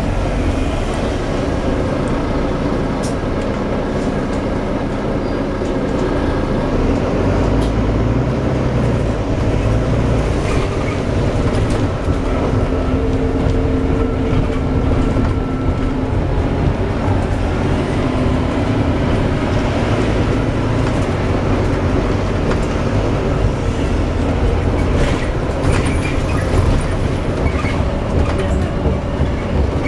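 Volvo B9TL double-decker bus running, a steady rumble with droning tones that come and go, the noise of a bad axle.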